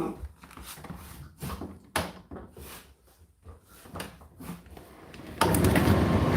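Clicks and knocks of an Indesit IDC8T3 condenser tumble dryer being handled. About five seconds in, the dryer starts running with a sudden, loud, steady noise that carries on.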